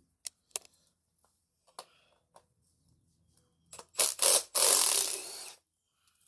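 Hand tools working on an engine bolt: a few light metallic clicks, then, about four seconds in, two sharp metal strikes and a quick run of clicking from a socket ratchet wrench lasting about a second.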